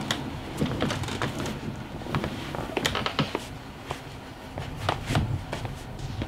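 Soft footsteps and rustling from a person in pajamas getting up and walking across a bedroom floor: irregular light clicks and scuffs over a steady low hum.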